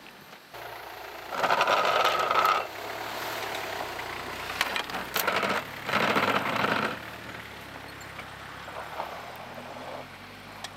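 Off-road 4x4 engine revving hard in two loud bursts of about a second each, tyres churning in deep snow, then running more steadily at lower revs.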